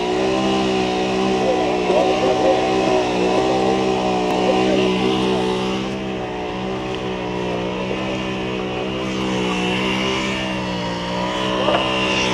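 Heavy diesel engine of the concrete pumping and mixing machinery, running steadily at high speed while concrete is being pumped. It eases off slightly about six seconds in.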